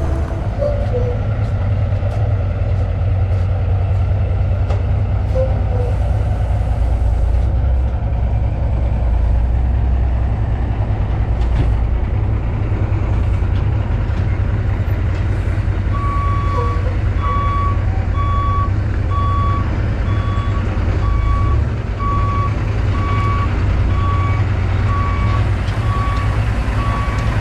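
Skid steer's engine running steadily at working revs, with a reversing alarm starting about two-thirds of the way in and beeping evenly, a little more than once a second, as the machine backs up.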